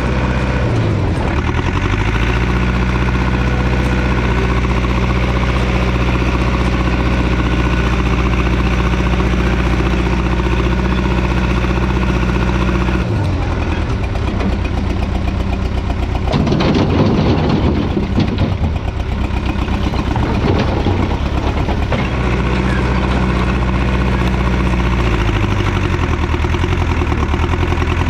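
Allis-Chalmers 655 track loader's engine running steadily, its speed shifting a few times as the machine works. About halfway through there are several seconds of loud clattering and rattling.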